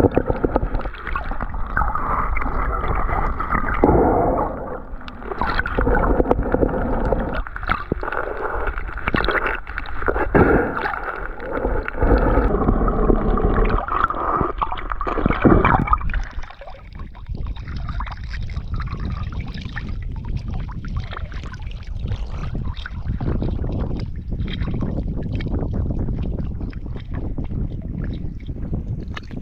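Water heard through an underwater camera: irregular gurgling and sloshing with knocks, turning to a lower, steadier wash with light clicks about halfway through.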